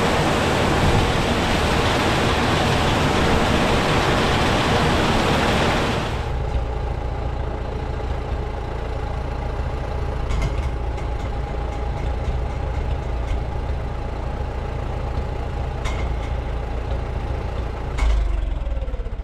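Machinery running: a loud rushing noise that changes suddenly about six seconds in to a steadier, quieter hum with a faint whine, with a few clicks and a low thump near the end.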